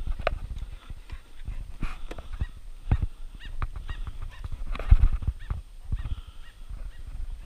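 Metal ferret carry box being handled: a string of sharp knocks and rattles as the lid is worked and ferrets are lifted out, mixed with rustling, with the loudest knock about five seconds in.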